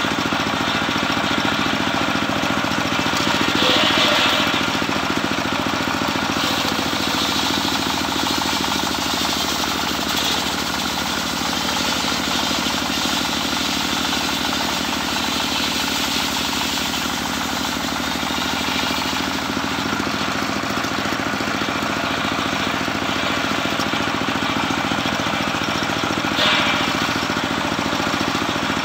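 Homemade engine-driven circular sawmill running steadily while its large blade rips a teak log lengthwise, the steady engine hum overlaid with the cutting noise. The cut briefly grows louder and harsher about four seconds in and again near the end.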